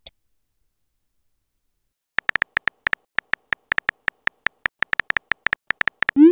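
Simulated keyboard typing sounds from a texting-story app: a quick run of short, even, clicky ticks, one per typed character. Just before the end comes a short rising swoosh, the app's message-send sound.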